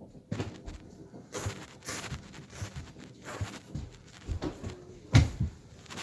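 A rapid series of short, sharp sneezes, about a dozen, the loudest just past five seconds in.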